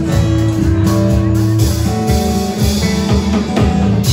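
Live band music amplified through a PA: acoustic guitar and bass guitar playing with a steady beat.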